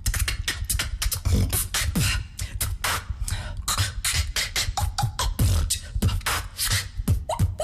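A woman beatboxing a fast, dense groove: mouth-made kick drums with a dropping low thump, snares and crisp hi-hat clicks in a steady rhythm.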